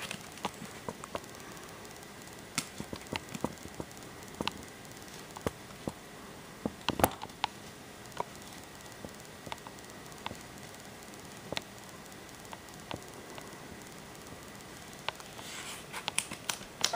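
Blank lead-in of a VHS tape playing back: a steady hiss with scattered sharp clicks and crackling pops.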